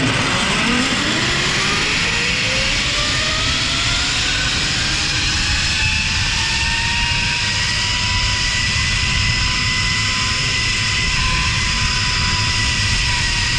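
Zipline trolley's pulley wheels running down the steel cable: a whine that climbs in pitch over the first several seconds as the rider picks up speed, then holds steady. Loud wind rushes over the microphone throughout.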